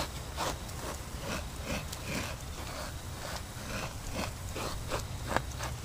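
Fingers brushing and scraping fine powder across a flat slab in short, irregular strokes, two or three a second.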